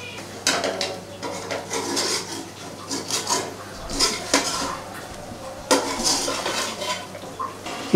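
A utensil scraping and knocking against a metal karahi as chicken karahi is stirred to mix in chopped coriander. There are irregular scrapes and clinks, several per second at times.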